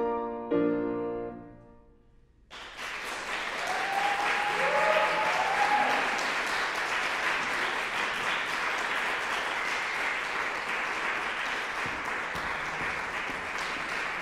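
A grand piano plays the closing chords of a song, which ring and die away into a brief hush. About two and a half seconds in, an audience breaks into steady applause, with a few whoops in the first few seconds of it.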